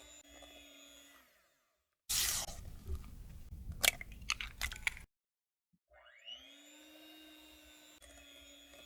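Electric hand mixer beating cake batter, a steady motor whine that stops about a second in. After a pause, a burst of rustling and a few sharp clicks and taps. Then the mixer starts again, its pitch rising as it spins up, and runs steady.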